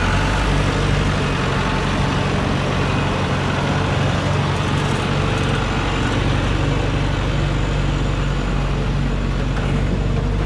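Diesel engine of a heavily loaded Dongfeng log truck running steadily under load as the truck creeps forward on a dirt track.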